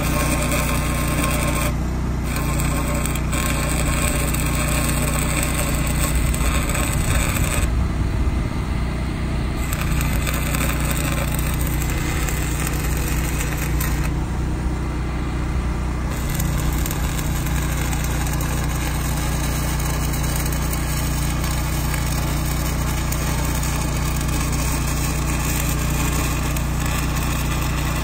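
Arc welding on steel pipe: the steady crackling hiss of the welding arc. An engine runs steadily underneath, and the crackle drops out briefly a few times as the arc is broken.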